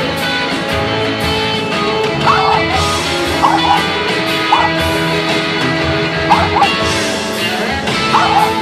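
Background music carried by guitar, with short higher notes standing out every second or two.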